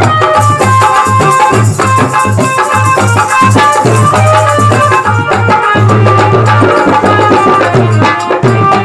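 Instrumental interlude of a Hindi devotional bhajan: a melody of held notes over a steady hand-drum beat with other percussion.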